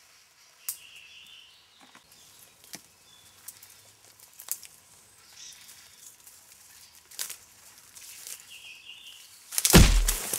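Footsteps through forest undergrowth, with a few sharp twig snaps and short bird chirps over quiet woodland ambience. Near the end a sudden loud rushing noise cuts in and keeps going.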